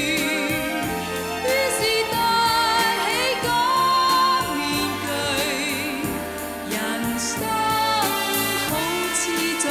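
Cantopop ballad theme song in an instrumental passage between sung lines: sustained melodic instruments with vibrato over a steady accompaniment.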